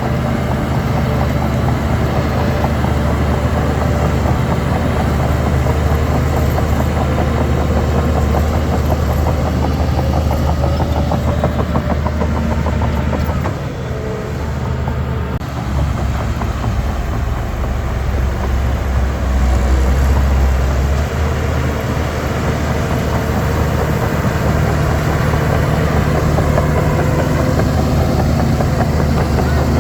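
Heavy diesel engine of earthmoving machinery running steadily. The engine eases off briefly about halfway through, then pulls harder a few seconds later.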